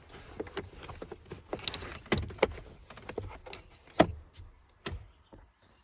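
Irregular sharp clicks and knocks of hand tools and plastic trim being handled, with rustling and scraping in between, while steering column covers are being worked loose; the loudest knocks come about two, two and a half, four and five seconds in, and it goes quiet near the end.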